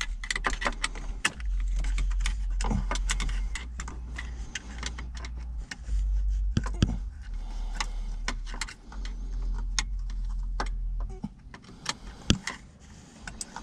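Irregular metallic clicks and clinks of hand tools and car parts being handled, over a low steady rumble.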